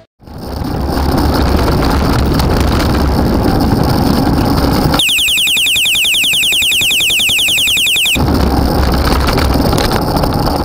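Wind buffeting the microphone of a bicycle-mounted camera while riding in traffic, a loud low rumble. From about five to eight seconds in the rumble drops out and a rapid, high-pitched chattering repeats many times a second, then the wind noise returns.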